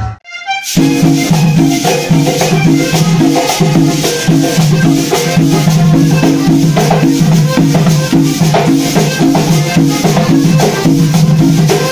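Cumbia on a button accordion, its chords pumping in a steady beat, with a metal guacharaca scraper rasping the rhythm. It starts after a brief gap, less than a second in.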